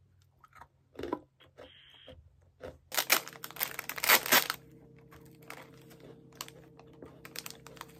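Clear plastic cookie bag crinkling and tearing as it is opened, loudest for about a second and a half starting three seconds in, then lighter scattered crinkles as the bag is handled.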